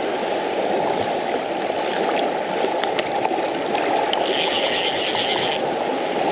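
Steady rush of fast river current. About four seconds in, a fly reel's ratchet buzzes for about a second and a half as line runs through it while the fish is played.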